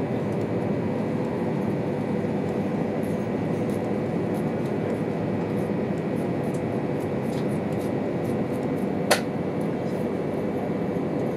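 Steady running noise of an E2 series Shinkansen at speed, heard inside the passenger cabin: an even rumble and hiss with a faint hum. A single sharp click sounds about nine seconds in.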